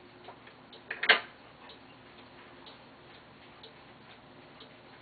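Paragon electric rolling ball clock running: faint ticks about once a second, and a loud sharp clatter about a second in from its chrome steel ball bearings striking the mechanism.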